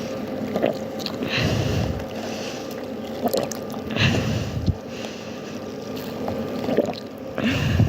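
Water sloshing and splashing, coming in irregular surges.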